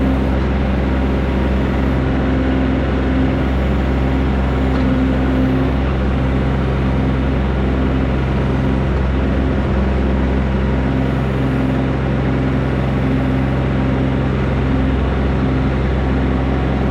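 Kubota B2301 compact tractor's diesel engine running steadily.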